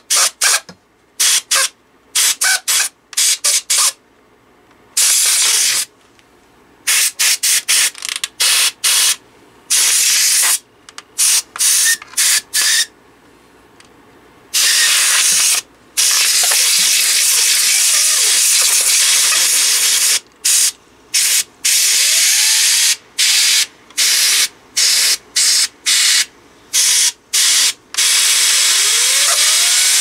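Can of compressed air hissing through a straw into a laptop's cooling vent, blowing dust out of the fan's heatsink. Many short squirts in the first half, then long blasts with only brief breaks.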